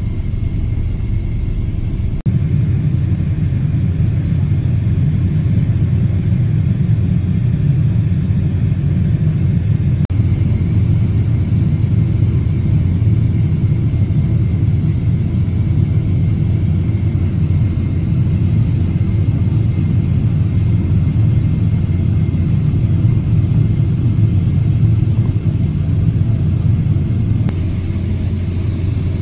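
Cabin noise of a Boeing 777-300ER rolling on the ground: a steady low rumble with the even hum of its GE90-115B jet engines at low power. The rumble grows a little louder about two seconds in.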